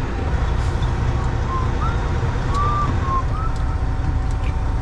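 Semi truck's diesel engine running steadily, a constant low rumble heard from inside the cab. A few short, faint chirps sound over it near the middle.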